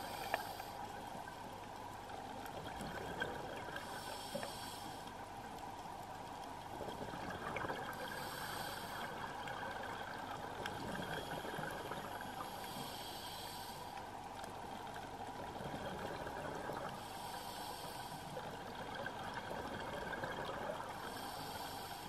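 Scuba diver's breathing underwater: a hissing rush of regulator exhaust bubbles about every four to five seconds, five times, over a steady underwater background noise.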